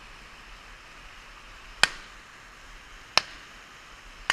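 Three sharp shotgun shots, a little over a second apart, each with a brief ring after it, over the steady rush of a hill stream.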